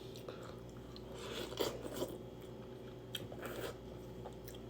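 A person chewing and biting food close to the microphone, in a few irregular spells of soft crunching.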